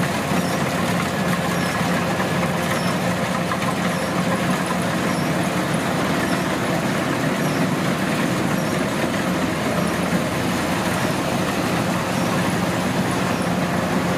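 Kubota DC105X combine harvester's diesel engine running steadily.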